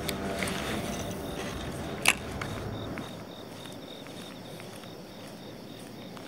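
Spinning reel being cranked as a shad crankbait is twitched and retrieved, with one sharp click about two seconds in. A faint steady high tone runs underneath.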